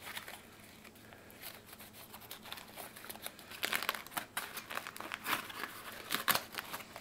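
Aluminium foil crinkling and crackling as a foil wrapping is pulled open, sparse at first and louder and busier from about halfway through.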